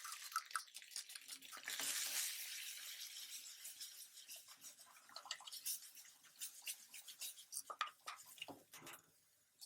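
Blended onion, ginger, garlic and chili paste sizzling faintly in hot oil in a pan, the hiss fading after the first few seconds. After that a utensil scrapes and taps against the pan as the paste is stirred.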